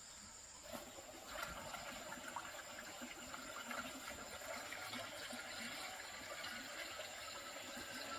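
A steady rushing hiss starts about a second in and carries on without a break.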